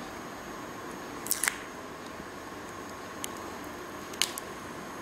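A few light, short clicks and taps from a smartphone being handled and its top power button pressed to switch it on, about a second and a half in, around three seconds in, and just after four seconds in, over a steady low hiss.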